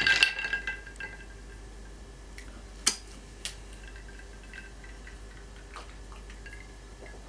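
Ice cubes clinking against a glass tumbler as the drink is stirred by finger, dying away within the first second. Then one sharp clink of the glass about three seconds in, with a lighter one half a second later, and a few faint ticks.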